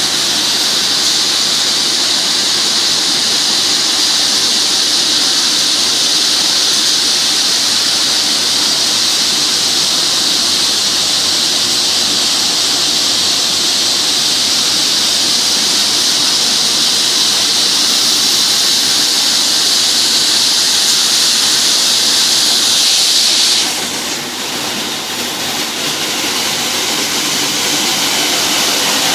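Calibrating sanding machine for wood veneer running, a steady loud hiss of abrasive sanding wood over machine noise. About 23 seconds in the high hiss drops away and the sound briefly gets quieter, then builds again.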